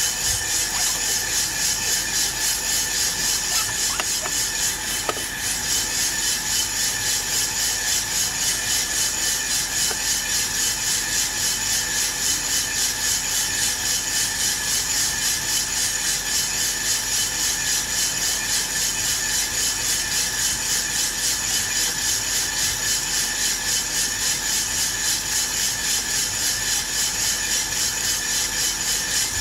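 Aillio Bullet R1 V2 drum coffee roaster running, a batch of green coffee beans tumbling and rustling in the turning drum with a rapid, even swish over a steady hum. The beans are in the early drying phase, about a minute into the roast.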